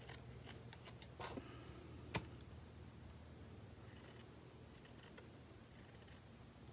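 Scissors snipping around a circle of linen fabric: faint, irregular cutting clicks, the sharpest one a little over two seconds in. The scissors are cutting badly, which the user blames on them needing to be replaced.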